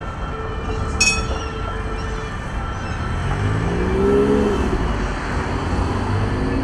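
Electric low-floor Cobra tram passing close by on street rails: a steady low rumble with a motor whine that rises in pitch around the middle. There is a short, sharp metallic ping about a second in.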